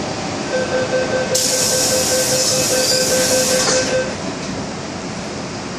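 MTR M-Train sounds: a steady high squeal holding for about three and a half seconds, with a loud hiss of air through the middle two seconds of it, then the carriage's steady running noise.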